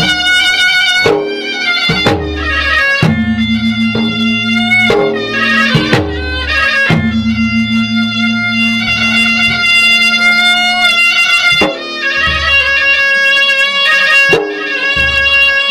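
Traditional Maros gendang adat ensemble playing: double-headed gendang drums beating deep, irregularly spaced strokes under a loud, held, shrill melody line.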